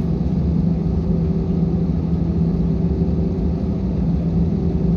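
Jet airliner's engines at taxi power, heard from inside the cabin: a steady low drone with a constant hum over a rumble as the plane taxis onto the runway.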